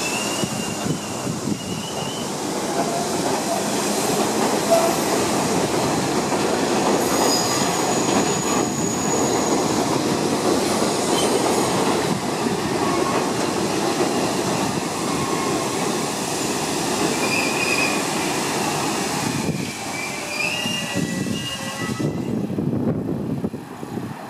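R42 subway train rolling into a station on an elevated steel structure, its steel wheels squealing on and off over the curve under the steady running rumble. Near the end the high squeal drops out as the train comes to a stop.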